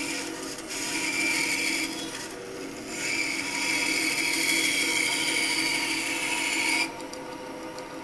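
Band saw cutting through a block of wood in two passes, the second and longer one running about 3 to 7 seconds in, over the steady hum of the saw's motor and blade. The cut ends near the end, and the saw keeps running freely.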